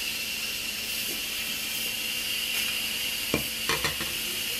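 Instant Pot electric pressure cooker venting steam through its release valve during a quick release: a steady hiss. A few short knocks sound about three and a half seconds in.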